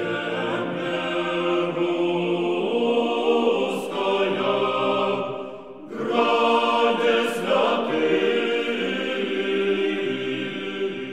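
Choir singing slow, sustained chords in two long phrases, with a brief dip between them just before the middle.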